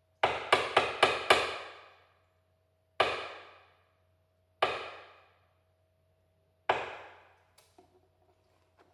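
Wooden clappers (hyoshigi) struck together: five quick, sharp clacks in the first second and a half, then three single clacks spaced about two seconds apart, each ringing briefly. This is the traditional signal that a kamishibai story is about to begin.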